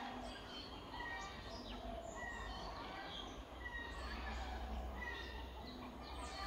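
Several birds chirping and calling, with many short high chirps and quick falling notes, and one short call repeating about once a second.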